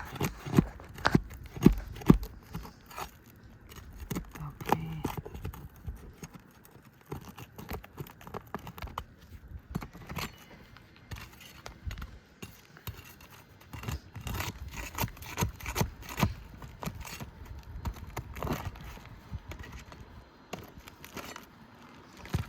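Roofing nails being pried out of asphalt shingles with a hand tool: irregular metal clicks, knocks and scrapes, with a few sharp knocks in the first couple of seconds.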